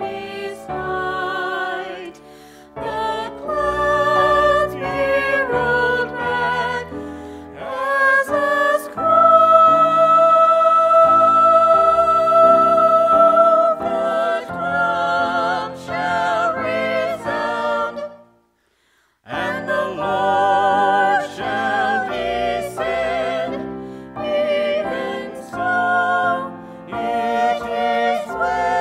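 Three voices, two women and a man, singing a gospel hymn together in harmony, with a long held note about nine seconds in and a pause of about a second just past the halfway point before the singing goes on.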